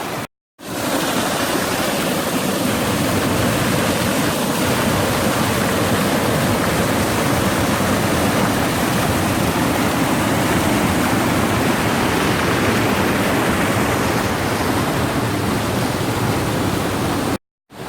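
Waterfall cascades on a mountain brook, a steady loud rush of falling water. It drops out briefly just after the start and again near the end.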